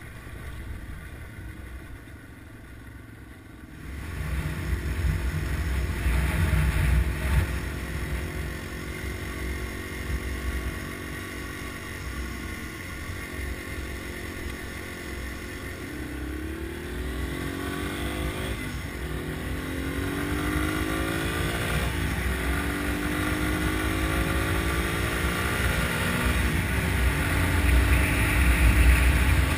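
Small air-cooled single-cylinder four-stroke Yamaha dual-sport motorcycle engine heard on board. It runs softly for the first few seconds, then louder from about four seconds in. In the second half it rises in pitch three times, dropping back briefly at each gear change as it accelerates.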